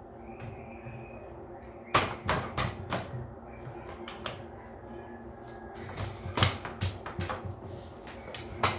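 Clicks and knocks of a clothes drying rack's parts being fitted together, in short clusters, over a faint steady hum.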